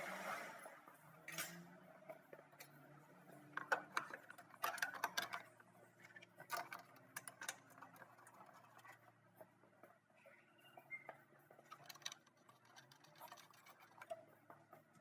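Faint, irregular clicks and metallic taps of hand tools working a car battery's cable terminal.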